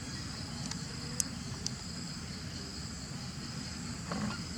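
Steady high-pitched insect chirring in two even tones, with a few short sharp clicks over a low background rumble.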